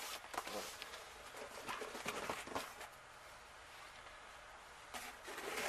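Handling noise from unboxing a rifle: scattered light clicks and knocks in the first few seconds, then rustling of packaging that swells near the end.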